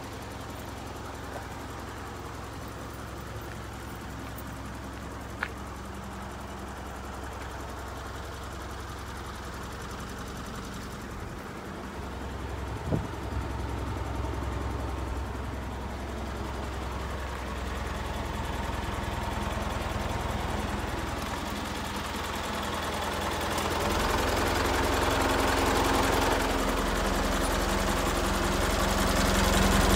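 Isuzu Elf truck engine idling steadily, growing louder about halfway through and again near the end.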